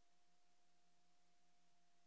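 Near silence: a faint steady hum and hiss with no other sound.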